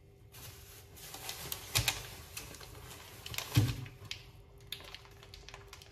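Plastic packaging crinkling and rustling as hands rummage in a reusable shopping bag and pull out a plastic-wrapped pack of meat, with a scatter of irregular crackles that bunch up about two seconds in and again past the middle.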